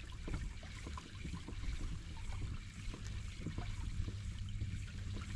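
Water trickling and lapping against a moving kayak's hull, with many small irregular splashes and ticks over a steady low rumble.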